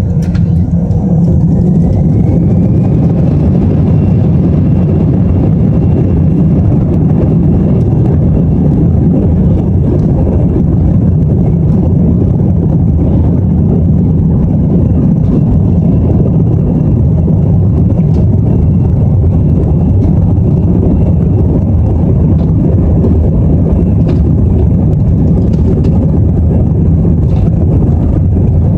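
Airbus A321's jet engines spooling up to takeoff thrust, heard from inside the cabin: a whine rises in pitch over the first few seconds and then holds steady over a loud, even roar.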